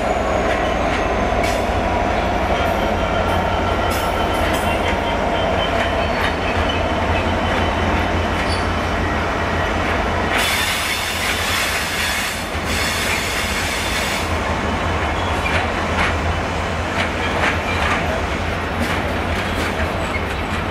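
Freight train hauled by a GBRf Class 66 diesel locomotive rolling past, its covered steel wagons making a loud, steady rumble. The wheels click repeatedly over rail joints, with faint wheel squeal heard through it.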